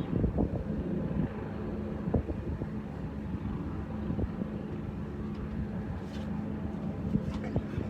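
An engine running steadily with a constant low hum, with wind buffeting the microphone and a few light knocks.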